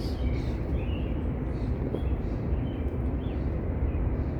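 Outdoor ambience: a steady low rumble with several short, faint bird chirps scattered through it.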